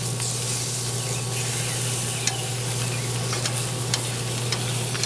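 Teriyaki-marinated pork tenderloin searing on a hot grill grate, a steady sizzle with a few sharp pops scattered through it. A steady low hum runs underneath.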